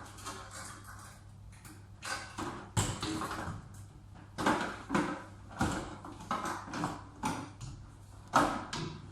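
Workbench handling noises from parts of an electronic light-therapy unit being fitted back together: a dozen or so sharp clicks and knocks, one of the loudest a little past eight seconds in, over a steady low hum.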